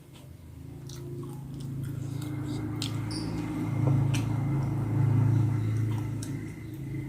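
Close-up chewing and biting of bakso meatball soup, with a few sharp clicks. Under it runs a low droning hum that swells to its loudest in the middle and then eases off.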